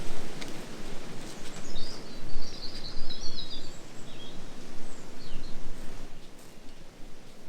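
Wind buffeting the microphone in a loud, uneven rush, with a small bird twittering from about two seconds in until about five and a half seconds.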